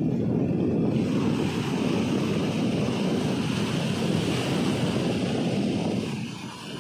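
Sea surf breaking and washing up the shore, the foam hissing, over a heavy rumble of wind on the microphone. The hiss of the surf swells about a second in and eases off near the end.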